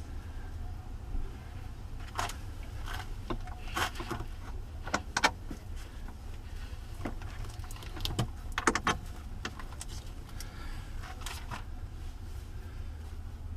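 Scattered light metallic clinks and knocks from battery hardware and hand tools being handled, some in quick runs, over a steady low hum.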